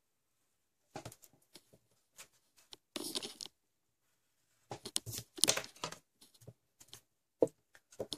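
Pencil scratching across drawing paper in quick, short strokes, in two spells of sketching, with a single sharp tap near the end as the pencil is laid down on the paper.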